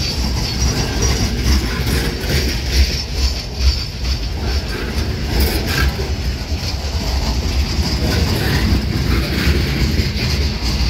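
Freight train cars, autoracks and boxcars, rolling past close by: a steady heavy rumble with the wheels clicking over rail joints and a steady high hiss from the wheels on the rails.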